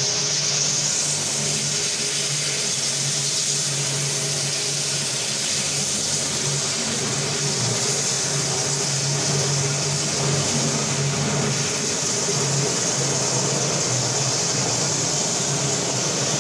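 Single-disc marble floor polishing machine running steadily, its motor humming as the pad grinds over the wet marble, with a steady hiss over the hum.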